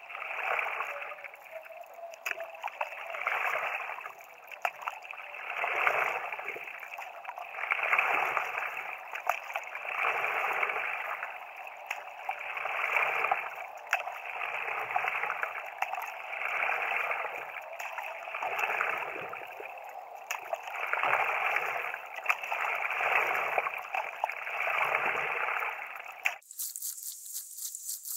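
Stand-up paddleboard paddle strokes: water swishing and gurgling along the board, swelling about every two seconds with each stroke. Near the end it cuts off abruptly and a thin high hiss takes its place.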